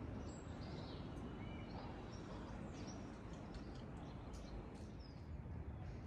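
Steady low background hum of the city with scattered short bird chirps and calls.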